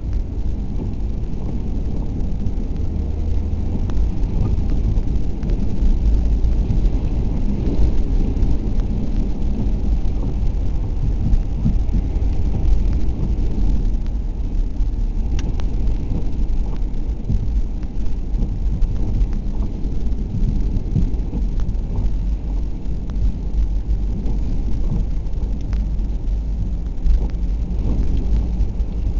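Steady low rumble of wind buffeting the camera microphone at the flooded shoreline, with a few faint clicks.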